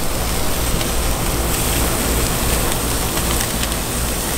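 Food sizzling on a hot gas grill, with fish fillets and buttered bread on the grates: a steady hiss with faint crackles over a low rumble from the burners.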